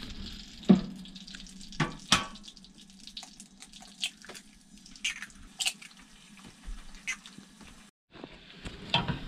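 Eggs being cracked into a ceramic-coated frying pan of hot melted butter: a few sharp knocks in the first couple of seconds, then scattered small crackles and pops as they fry.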